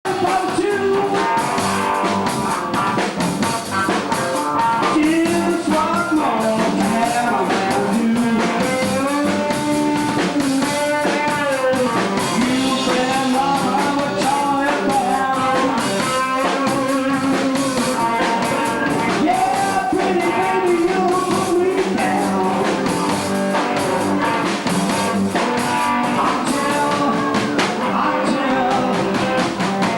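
Rock and roll band playing a song: a voice singing over guitar and drum kit, steady and continuous.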